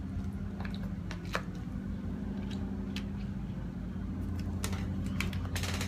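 Lawnmower engines running steadily in the background as a low drone, with a few light clicks and taps over it.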